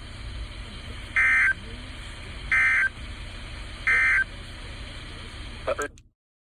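NOAA Weather Radio SAME digital end-of-message bursts: three short, identical warbling data tones about a second and a half apart over a hissy, humming radio signal, marking the end of the severe thunderstorm warning. Near the end the broadcast cuts off suddenly.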